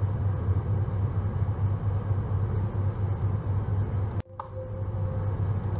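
Steady low hum with a faint hiss behind it, the background noise of the voice recording; it drops out for an instant about four seconds in.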